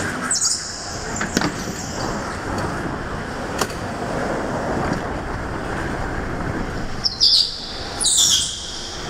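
Go-kart driving hard around an indoor track, heard onboard: steady running and rolling noise with a few sharp knocks, and two loud high squeals from the tyres about seven and eight seconds in.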